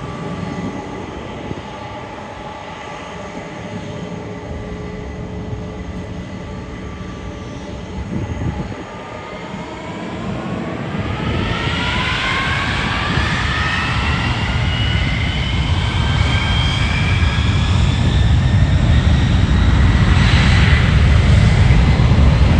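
Boeing 767-300ER jet engines spooling up to takeoff power. A steady hum gives way about halfway through to a whine rising in pitch over a low rumble, and the whole grows steadily louder.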